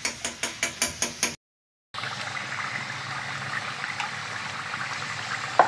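A metal spoon stirring in an iron karahi, a quick run of scraping strokes, then after a brief break the mutton karahi gravy simmering with a steady bubbling hiss.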